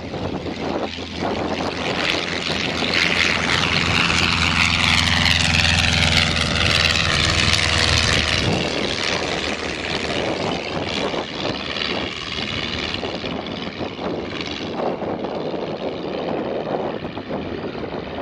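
Stolp SA-900 V-Star biplane's piston engine and propeller running at takeoff power as it lifts off and climbs past. It is loudest from about three to eight seconds in, its pitch dropping as it passes, then grows fainter as it climbs away.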